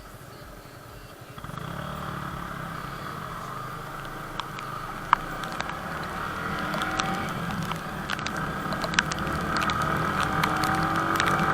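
Riding sound of a Yamaha R15 V3's single-cylinder engine with wind rush. It comes up about a second and a half in, grows slowly louder and rises in pitch near the end as the bike speeds up, with scattered sharp clicks on the microphone.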